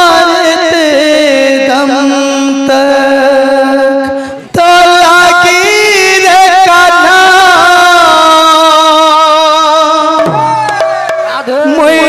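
Kirtan devotional music: a man sings long, wavering notes into a microphone over the loud PA, with barrel-drum accompaniment. The music breaks off briefly about four and a half seconds in.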